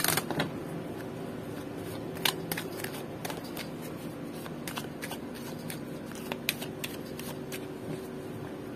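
A deck of oracle cards being shuffled by hand: scattered soft clicks and flicks of the cards, over a faint steady hum.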